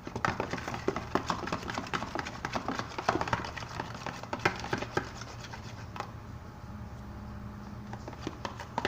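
Fast stirring of a homemade slime mixture of white glue and activator: rapid clicking and scraping of the stirrer against its container, dense for about six seconds and then slowing to scattered taps.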